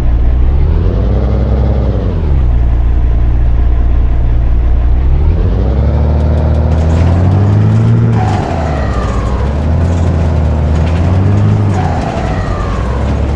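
Ford F-600 truck engine accelerating as the truck pulls away, its pitch climbing and then dropping back three times as it goes up through the gears. The exhaust is loud and rumbling.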